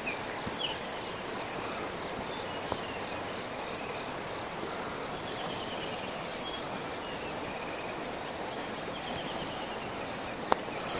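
A river running over rocks, a steady rushing, with faint bird chirps now and then. A single sharp click near the end.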